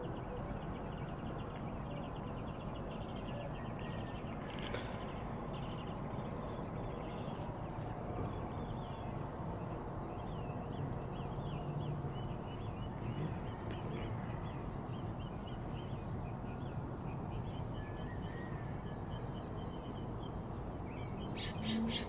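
Small birds chirping and singing at a distance over a steady outdoor background hum, with a short burst of sharp, harsh sounds near the end.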